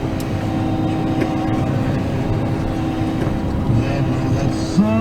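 Combine harvester running steadily while picking corn: a constant engine drone with a steady whine over it. Near the end a whine rises in pitch and then holds.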